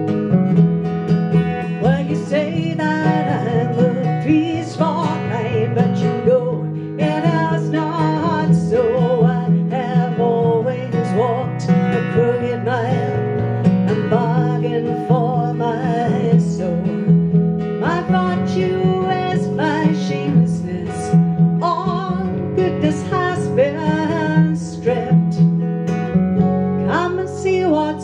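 Strummed steel-string acoustic guitar with an electric bass guitar played through a small combo amp, together playing a steady folk-style song.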